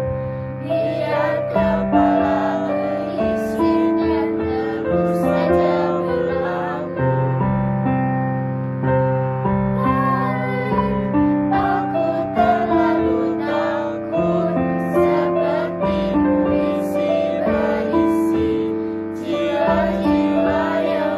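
Young, mostly female voices singing a song together, one into a hand-held microphone, accompanied by piano chords played on an electronic keyboard.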